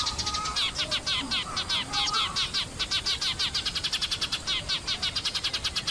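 Eurasian tree sparrows chirping in a fast, unbroken chatter of short, high chirps, about seven or eight a second.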